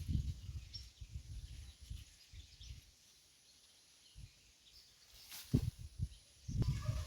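Outdoor ambience with a few short bird chirps and low, irregular rumbling, quieter in the middle, and a brief sharp sound about five and a half seconds in.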